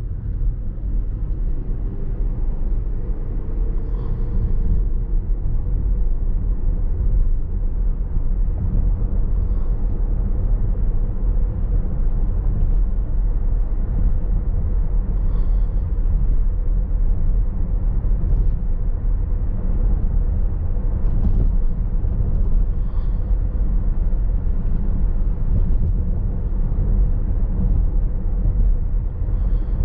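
Steady low road and tyre noise inside the cabin of a Tesla Model S Plaid driving on a wet road, with no engine note. It rises a little over the first few seconds as the car gathers speed, and a faint high chirp comes every several seconds.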